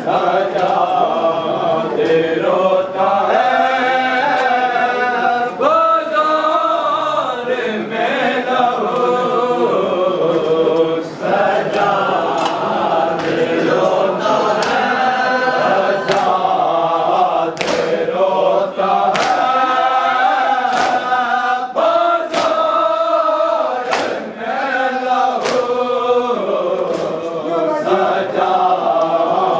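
A group of mourners chanting an Urdu noha together, with sharp rhythmic slaps about once a second starting about halfway through: hands beating chests in matam.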